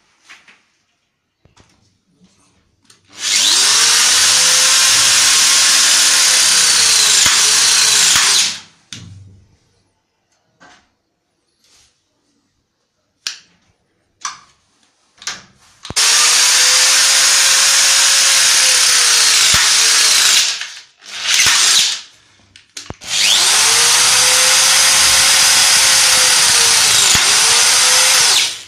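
Electric motor of a REMS electro-hydraulic press tool running in three long press cycles of about five seconds each, plus a short burst before the last, as it crimps press fittings onto metal-plastic pipe. In each run the whine rises and then dips near the end; faint handling clicks fall in the gaps.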